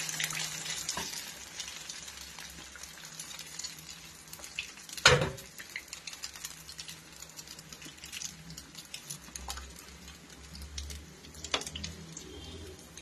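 Batter-coated potato rolls deep-frying in hot oil, a steady light sizzle, while a metal slotted spoon stirs and turns them with small scrapes and clicks and one sharp clink against the pan about five seconds in.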